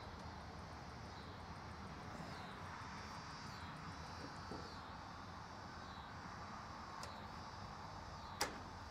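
Quiet background with a faint high chirp repeating about once a second, and a single sharp click near the end.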